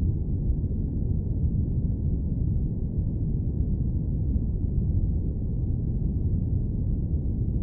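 Airplane cabin noise: a steady, deep rumbling hiss with no high end, unchanging in level.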